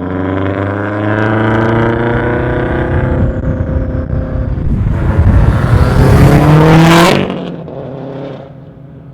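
Turbocharged flat-four engine of a full bolt-on 2004 Subaru WRX STI under acceleration: its pitch climbs steeply and it is loudest just before it cuts off sharply about seven seconds in with a brief hiss, after which it is much quieter.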